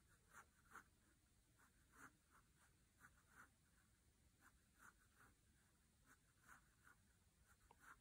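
Faint pencil strokes on paper: short, scratchy hatching strokes, irregular, roughly two a second, shading the knurling of a drawing.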